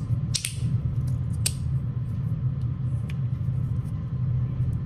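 Magnetic fidget slider with G10 and micarta plates clicking sharply as it is slid and its magnets snap the plates into place: three clicks, the first two the loudest, over a steady low hum.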